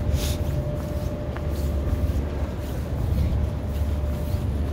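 Outdoor city ambience: a steady low rumble with a short hiss about a quarter second in.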